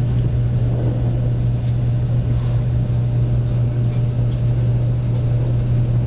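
Cabin running noise of a 0 series Shinkansen car under way: a steady low hum over the rumble of the wheels on the rails.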